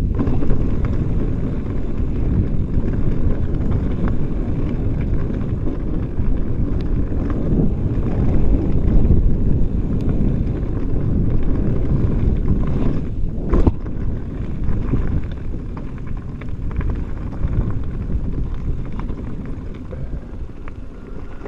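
Mountain bike riding fast over a dirt singletrack: wind buffeting the camera microphone and the tyres rumbling over the ground, with scattered rattles from the bike and one sharper knock about thirteen seconds in.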